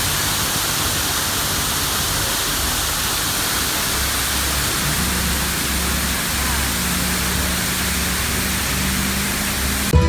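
Waterfall pouring down a steep rock face: a steady rush of water, with a faint low hum underneath from about four seconds in. Music starts abruptly at the very end.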